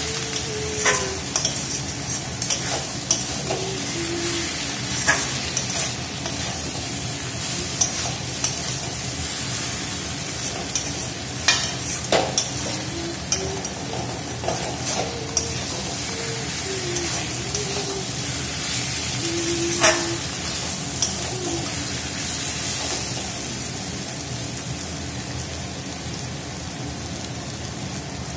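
Cabbage, pea and potato mixture sizzling as it fries down in a metal kadai, stirred and scraped with a metal spatula that clacks against the pan now and then. The vegetables are near the end of being fried until browned.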